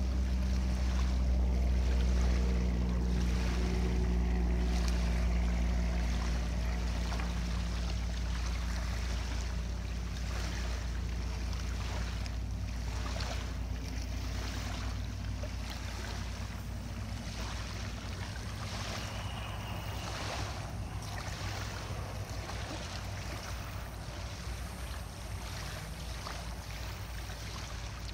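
Small waves lapping on a sandy shore with wind on the microphone, under a low, steady mechanical drone that fades away over the first half.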